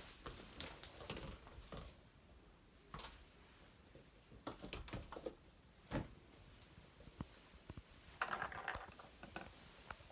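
Cats playing with a small ball on a hard floor: faint, irregular taps and scuffles of paws and ball, with one sharper knock about six seconds in and a short flurry of scuffling near the end.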